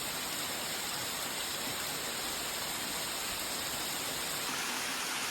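Tall waterfall: a steady, even rush of falling water.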